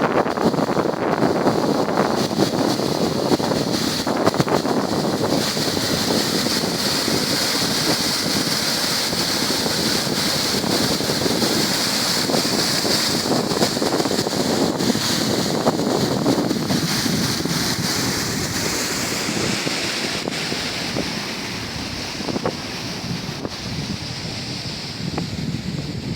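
Sea surf washing on the shore, a continuous rough rush, with wind buffeting the microphone; it eases slightly near the end.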